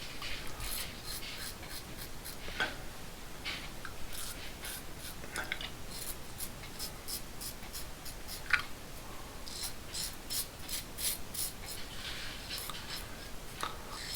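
Double-edge safety razor (Edwin Jagger DE89KN) scraping through lathered stubble: a series of short, crisp scrapes, some in quick runs of several strokes a second.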